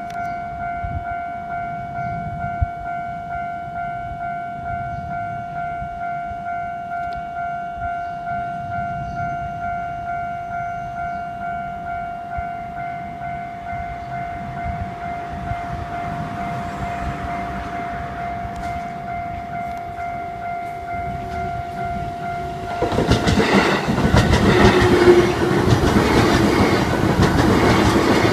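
Japanese level-crossing warning bell ringing with a steady, evenly pulsing electronic tone over a low rumble. About 23 seconds in, an electric train reaches the crossing and passes, its wheels clattering over the rail joints much louder than the bell.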